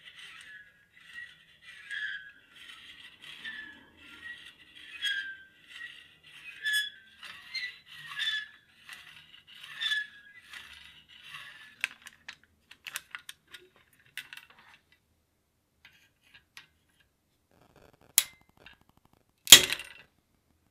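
Hand work on small metal parts: a series of rhythmic scraping strokes, then scattered light clicks, then two sharp knocks near the end, the second the loudest.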